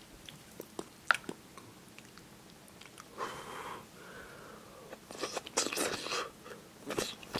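Someone eating thin-noodle tonkotsu ramen: chewing and mouth sounds with small clicks, and two longer noisy stretches of slurping noodles, one about three seconds in and a busier one from about five seconds.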